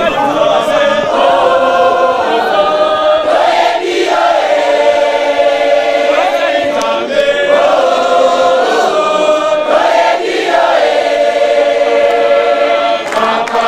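A large choir singing, in phrases broken by short pauses about every three seconds.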